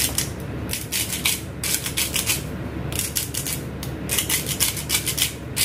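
Hand-twisted salt grinder grinding salt crystals: gritty crackling in short bursts as the top is turned back and forth, with a brief pause about halfway.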